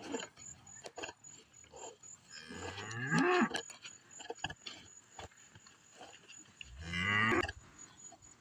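A cow mooing twice, each moo lasting about a second, with the first arching up and down in pitch. Faint short clicks come between the two calls.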